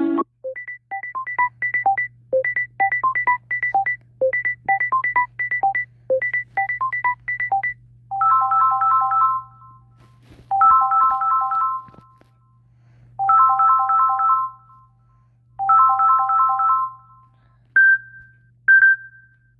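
Samsung phone ringtones played one after another. First a short melody of quick electronic beeps repeats four times, then a fast trilling chime rings in four bursts with short gaps, and two short single beeps come near the end.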